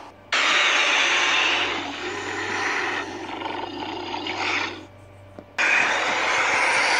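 Loud roar-like rushing noise, as used for a battle sound effect, lasting about four and a half seconds, dropping away for about a second, then starting up again.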